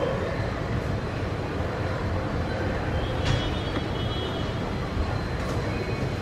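Steady outdoor background rumble of road traffic, with a faint high squeal appearing about halfway through.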